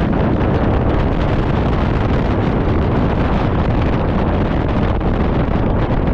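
Steady, loud wind buffeting on a GoPro's microphone on a moving scooter, mixed with the scooter's running and road noise.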